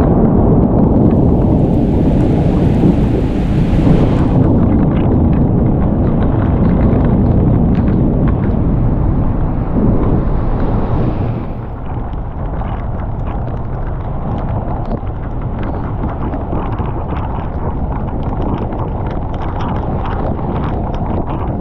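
Thunder from a mountain thunderstorm: a loud, deep rumble that starts suddenly and rolls on for about twelve seconds before easing into a steadier rushing noise.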